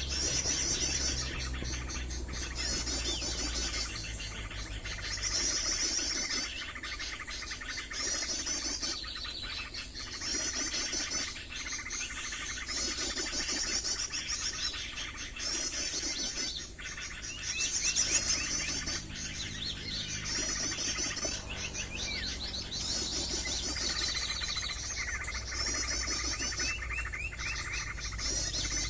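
Small birds chirping in short, rapid, high-pitched phrases that repeat every second or two.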